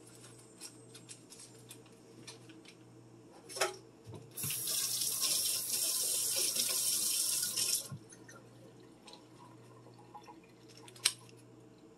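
Kitchen tap running in a steady stream for about three and a half seconds, then shut off, with a few small clicks and knocks of handling around it.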